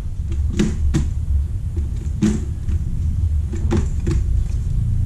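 A few sharp clicks and knocks as an Evo half-face helmet's shell is handled and turned over in the hands, over a steady low rumble.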